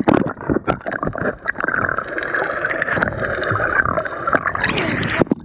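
Water sloshing and gurgling around a camera held underwater, muffled, with many scattered clicks and knocks.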